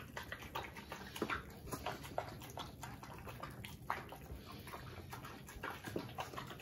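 A Rottweiler eating a soft rice and paneer meal from a bowl: irregular wet smacking and chewing, with short clicks several times a second.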